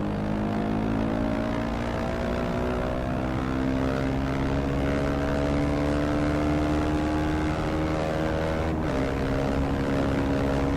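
Motorcycle engine running under way, its pitch rising slowly as it gathers speed, then dropping suddenly about nine seconds in, as at a gear change.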